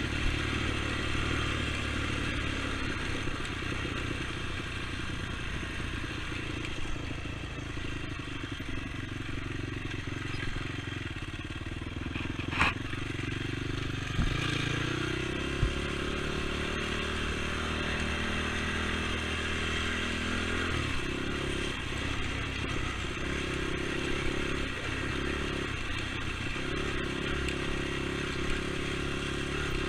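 ATV engine running under way, its pitch shifting as the throttle changes, with a sharp knock about twelve seconds in and a couple of smaller knocks soon after.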